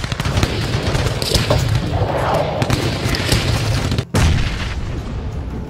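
Gunfire sound effect: a rapid, continuous stream of shots and booms, breaking off for an instant about four seconds in, then resuming and fading.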